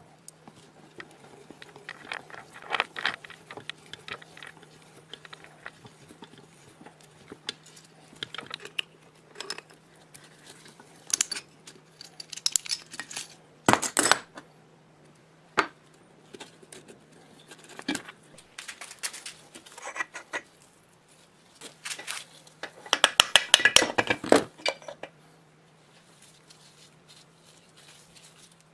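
Hand tools clinking and knocking on the metal parts of an air compressor as a bearing puller is worked with a wrench and parts are handled, in irregular clicks and taps. The loudest stretch is a rapid burst of metallic rattling and knocking a little before the end.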